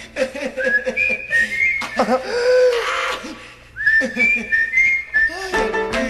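A whistled melody of held high notes with short slides between them, over sparse percussion, in a thinned-out break of a salsa song.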